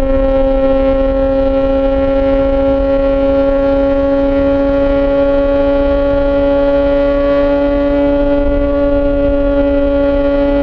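Yamaha XJ6 S's inline-four engine through an SC-Project exhaust, held at steady revs while riding, giving one even, unchanging engine note. A low wind rumble on the microphone runs underneath.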